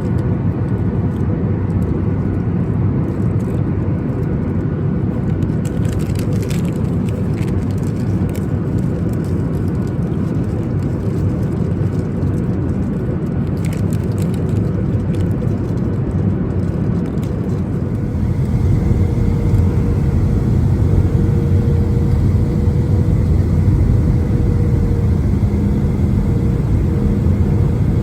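Steady low rumble of a Boeing 737 MAX 8's CFM LEAP-1B jet engines and airflow heard from inside the cabin, with a faint steady hum. About 18 seconds in it grows louder and a lower and a higher hum join in.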